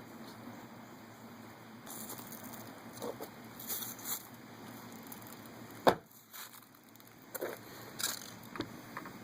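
Dried horseweed stalk and its leaves rustling and crackling as they are handled, with a single sharp knock about six seconds in.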